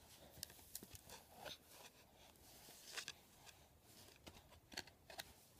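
Near silence: room tone with faint, scattered small clicks and rustles. The sharpest come about three seconds in and again near the end.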